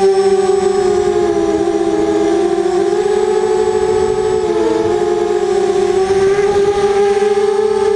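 Four brushless motors of an FPV racing quadcopter (T-Motor 2000Kv with 5045 bullnose props) whining in flight, heard from the camera on the craft itself. The steady whine is made of several close tones that drift apart and together, wavering in pitch as the throttle shifts.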